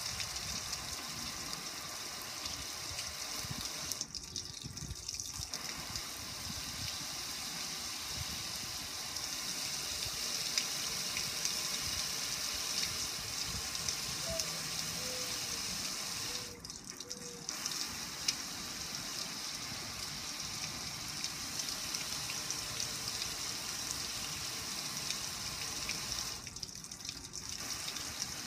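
Water spraying onto a black gas grill and running and splashing off its lid and control panel: a steady watery hiss that thins out briefly three times, about four seconds in, about sixteen seconds in and near the end.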